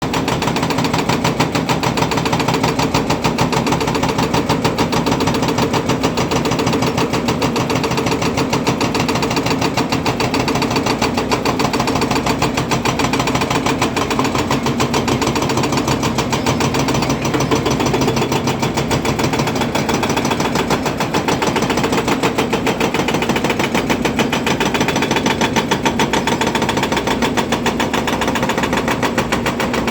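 Volvo EC300DL excavator's diesel engine running steadily, with a rapid, even pulsing over a low hum.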